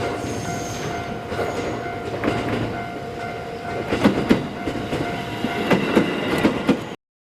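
JR Maizuru Line local train passing close by over a level crossing. A steady tone is heard at first; from about four seconds in, the wheels clack over the rail joints in a run of sharp knocks.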